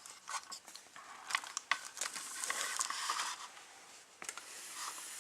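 Hands handling a plastic model kit: scattered small clicks and taps of hard plastic parts, with a stretch of rustling and crinkling in the middle.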